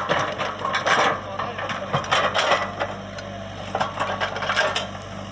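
Komatsu PC75UU excavator's diesel engine running steadily, with irregular clattering and knocking over it throughout.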